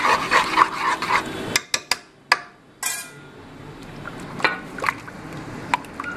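A spoon stirring sugar syrup in a metal pot, mixing in baking soda: quick rhythmic scraping against the pot for about a second, then a few sharp clicks and knocks on the rim. After a brief pause comes a louder scrape, then quieter stirring with a few clinks.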